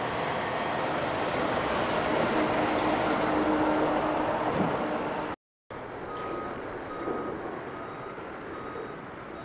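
Steady rumble of vehicle traffic. After a brief cut it turns quieter, and a vehicle backup alarm beeps steadily about twice a second in the distance.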